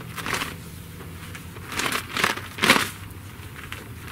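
A horse-training flag on a stick rustling in several short bursts as it is waved over and against a young horse's back to desensitize it.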